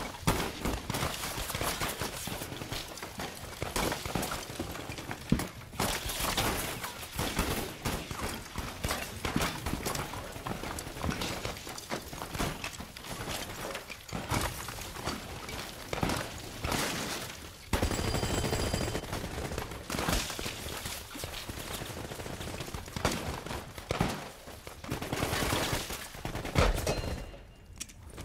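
Sustained battle gunfire from many rifles: shots overlapping in dense volleys, with a brief lull near the end.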